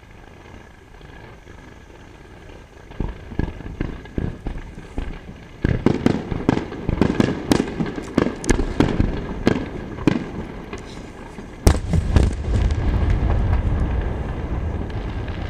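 Star mine fireworks barrage over the sea: after a quiet opening, a run of sharp bangs starts about three seconds in and grows quickly denser. One heavy bang near the end, the loudest, is followed by a steady low rumble with crackling.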